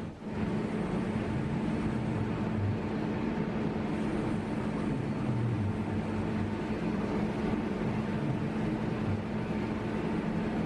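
Steady mechanical drone with a constant low hum, unchanging throughout, briefly dipping just after the start.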